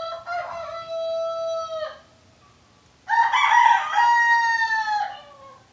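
A rooster crowing twice: two long cock-a-doodle-doo calls, the second louder and harsher at its start, with a short pause between them.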